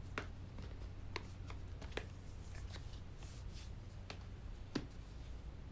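Hands handling an iPad in a silicone folding folio case, folding the cover over the screen and closing it: a string of about eight light taps and clicks, irregularly spaced, over a steady low hum.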